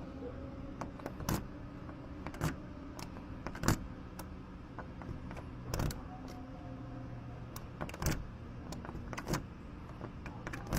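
Metal lock-picking tools working in a door lock: scattered sharp clicks and taps about a second apart, over a steady low hum.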